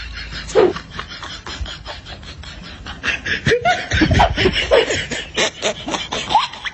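People laughing in short, irregular bursts.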